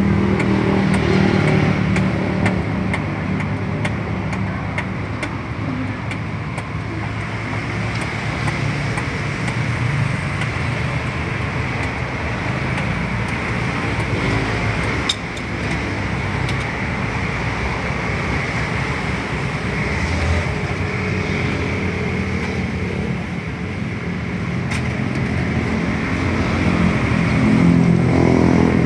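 Steady noise of motor-vehicle engines in street traffic, with a few light clinks of utensils.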